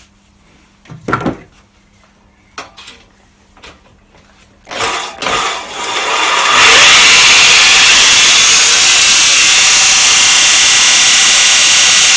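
Gardena hand reel mower being backlapped: its cutting reel is spun backwards at speed by a power drill, the blades rubbing against the bedknife with PTFE lubricant in place of lapping paste, a loud steady whirring grind. A few handling clicks and knocks come first; the drill starts about five seconds in and is at full speed from about six and a half seconds.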